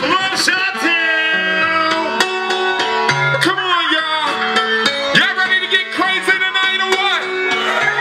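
Hip-hop music played loud from a live stage set: a melodic hook of long held notes over a stepping bass line, with light drum hits.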